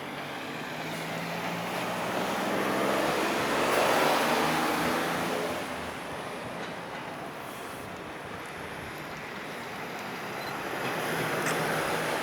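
Container freight train hauled by an EF510 electric locomotive rolling past slowly as it pulls out of the station. A steady low hum and running noise swell to a peak about four seconds in, ease off, then build again near the end.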